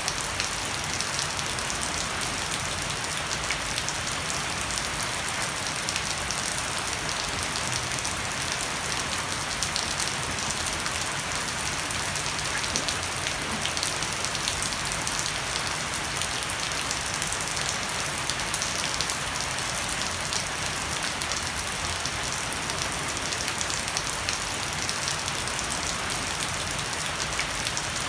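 Heavy rain falling steadily on a wooden deck and leafy garden plants, with water streaming off the edge of a thatched roof.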